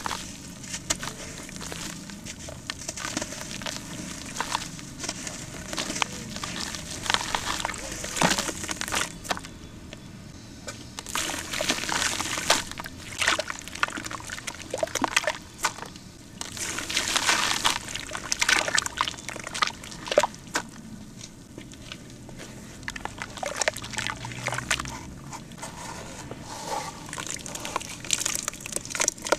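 Hands crumbling lumps of dry cement into a basin of water and kneading them into a wet paste: irregular sloshing, splashing and squelching, with sharp gritty crackles from the crumbling cement.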